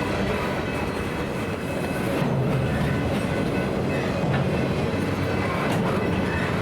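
BNSF freight cars of a wind-turbine-blade train rolling past: a steady rumble of steel wheels on the rails, with a few faint clicks over the joints.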